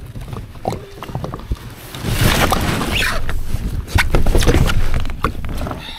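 A person in rain gear climbs into a plastic sit-on-top kayak and sits down, making scattered knocks and rustles on the hull. From about two seconds in come two longer stretches of loud rushing, scuffing noise.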